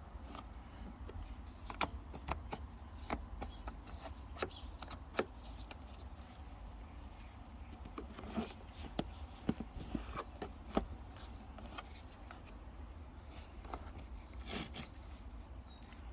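Screwdriver working under a plastic trim panel on a car rear seat: irregular clicks, taps and light scrapes of metal on plastic as the panel is levered, over a steady low rumble.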